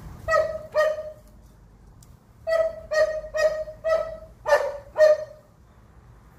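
Eight short, high-pitched animal calls: two close together near the start, then, after a pause of about a second, six more in quick succession.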